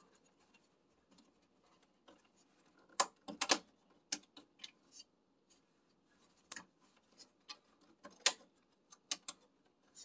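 Scattered short clicks and scrapes of hands handling plastic and cables inside an open desktop computer case, irregular, with the sharpest clicks about three seconds in and again about eight seconds in.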